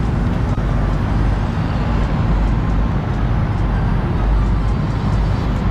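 Motorbike engine and city road traffic noise, steady throughout, with background music under it.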